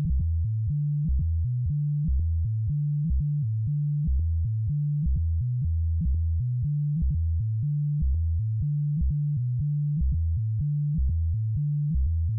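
Electronic music: a low, pure-toned synthesizer bass line stepping between a few notes, with a faint click at each note change and nothing else above it.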